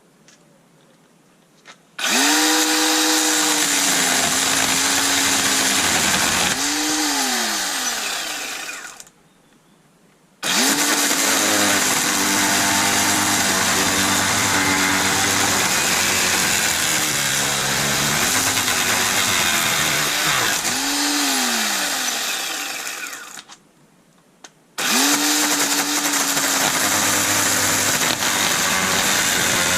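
Ryobi 18V brushless cordless chainsaw running in three bursts, cutting wood: each burst starts suddenly, and the motor's whine dips in pitch as the chain bites and recovers. Between bursts it winds down slowly rather than stopping dead, as it has no chain brake. It keeps running under load, a sign the repair holds.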